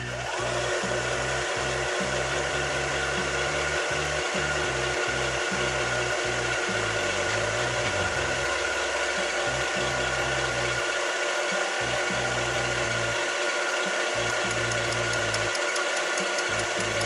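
Milling machine running, its face-mill cutter spot-facing the flange of an intake manifold. The sound is a steady machining noise with several held tones.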